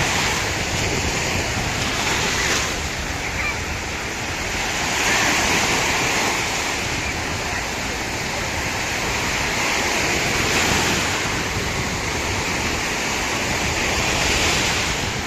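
Sea waves breaking and washing in, swelling and easing every few seconds, with wind buffeting the microphone.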